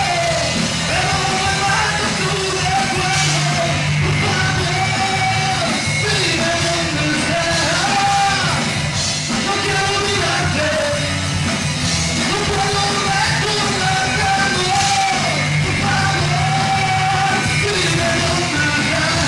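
Live rock band playing: a male voice singing over electric guitars and drums.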